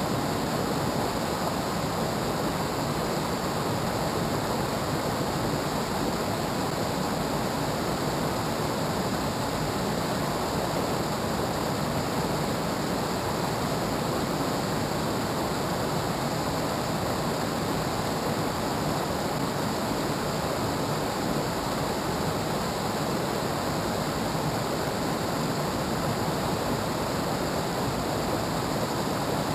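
A fast, rocky river rushing over rapids: a steady, unbroken rush of white water.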